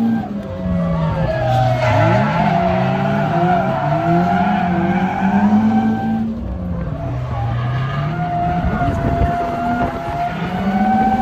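Turbocharged 1JZ-GTE inline-six in a Lexus SC300 drifting: the engine note falls and rises several times as the throttle is worked, with tyres squealing steadily over it.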